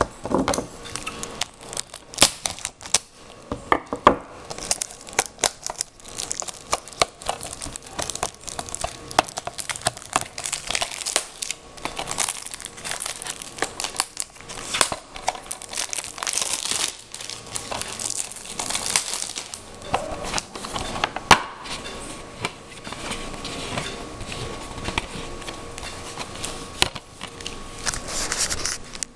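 Plastic packaging crinkling and tearing by hand as a DVD case is unwrapped and opened, with many scattered sharp clicks and crackles.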